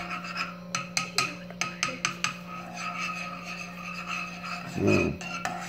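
A spoon clinking and scraping against a small saucepan as a raw egg is stirred, with a quick run of clinks about a second in. A short voice sound near the end.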